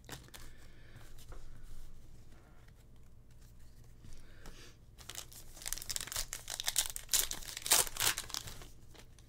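A Bowman's Best trading-card pack wrapper being torn open and crinkled by hand. Light rustling handling comes first; then, about halfway in, a dense crackling stretch of tearing lasts roughly three seconds.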